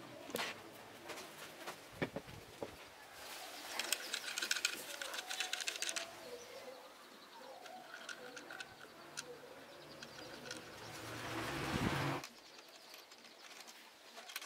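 A dove cooing and small birds chirping, with light clicks and knocks as speaker wire is plugged into the binding posts of the speaker cabinets. A rushing noise swells and cuts off suddenly about twelve seconds in.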